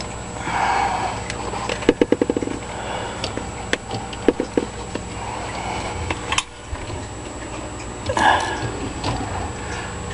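Scattered sharp clicks and light knocks with two short rustles, including a quick rattle of clicks about two seconds in, over a steady low hum.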